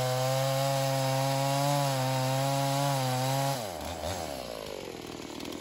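Big-bore Dolmar PS-7300 two-stroke chainsaw running at full throttle with a steady pitch, cutting through a firewood log. About three and a half seconds in, the throttle is let off and the revs fall away toward idle.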